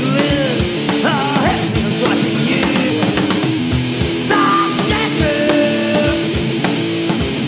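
Loud rock'n'roll music: an electric guitar riff over a steady drum beat, with a few bending pitch slides.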